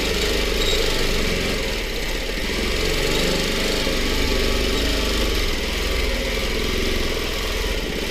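Longarm quilting machine running and stitching steadily: a fast, even needle rhythm over a motor hum.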